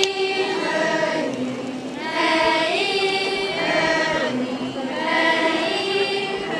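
Group of schoolchildren singing a traditional Naga folk song together, in drawn-out phrases of about two seconds with short breaks between them.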